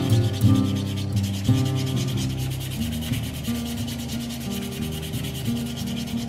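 Hand-sanding the edge of a new leather sole and welt on a boot, with quick, even back-and-forth rubbing strokes of abrasive on leather.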